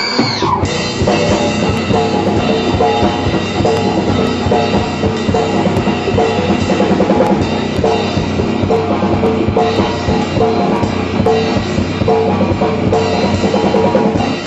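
Rock band playing live, with a full drum kit (bass drum, snare and cymbals) driving a steady beat under electric guitars. There is a short swoop in pitch at the very start.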